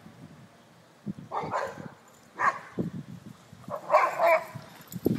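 Boxer dog barking three times, about a second or more apart.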